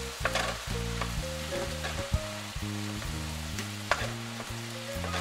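Italian sausage, onion and diced tomatoes sizzling in a frying pan while being stirred, with a few sharp knocks of the utensil against the pan. A background music track with a low, stepping bass line plays underneath.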